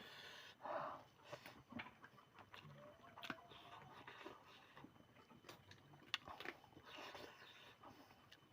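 A person eating chicken curry, chewing quietly with scattered small clicks and soft mouth sounds.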